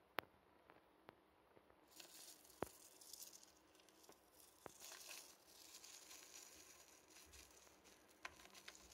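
A few sharp clicks and several seconds of faint, dry, scratchy rustling from feeding tweezers and a live cockroach moving in a plastic tub of sand.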